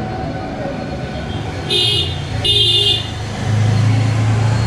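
Two short vehicle horn toots, about half a second apart, over a steady low rumble of road traffic that swells near the end.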